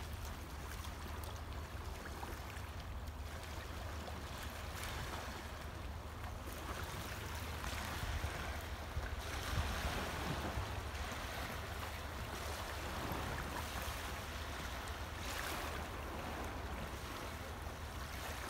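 Calm sea water lapping and washing against a pebble shore and rocks, a steady wash of noise that swells a little now and then, over a low wind rumble on the microphone.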